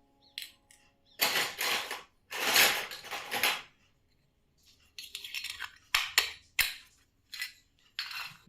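Miniature toy kitchen pieces being handled: two longer scrapes in the first half, then a run of sharp clicks and clinks as small utensils and dishes are set down.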